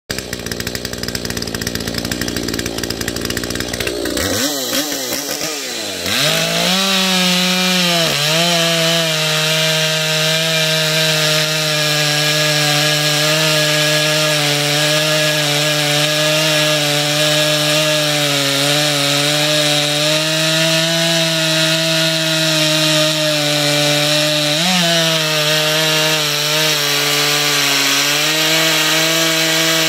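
Echo CS-590 two-stroke chainsaw, with a 25-inch bar and 3/8 chain on an 8-pin rim sprocket, being tested in a cut. It runs unevenly at first, revs up about four to six seconds in, then runs at full throttle while cutting down through a large log. Its pitch holds steady under load, with a short rise near the end.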